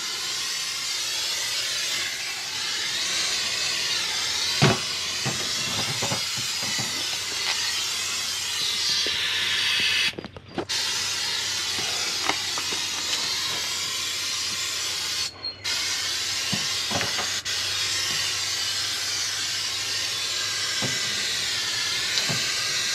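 Aerosol can of canola cooking oil hissing in long sprays as the smoker's grates and walls are coated to season it. The spray stops briefly twice, about ten and fifteen seconds in, and there are a few light knocks, the sharpest about five seconds in.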